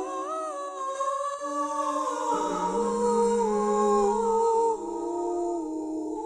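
Layered wordless voices humming long held notes from a sound installation, several pitches at once, each stepping to a new note now and then. A lower voice joins about two and a half seconds in.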